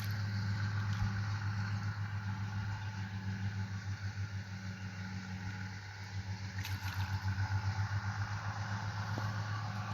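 An engine running steadily, a low, slightly pulsing hum.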